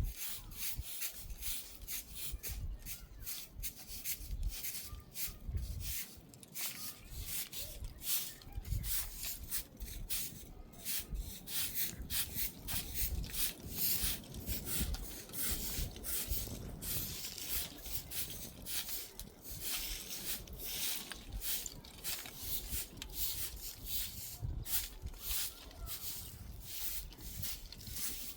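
Rapid, irregular scraping or brushing strokes, several a second, over a low rumble.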